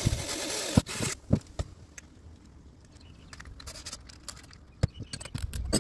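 Handling noise while working with tools: a brief scraping rustle in the first second, then scattered clicks and knocks. No drill is running.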